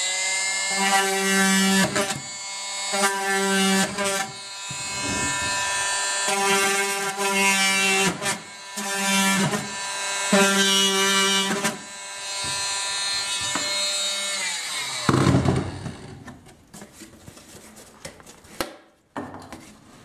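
Handheld electric power tool cutting a hole through a plastic bucket lid: the motor runs at a steady pitch, with a deeper tone coming and going every second or so as the blade bites into the plastic. It stops about fifteen seconds in with a thump, followed by lighter knocks of the lid being handled.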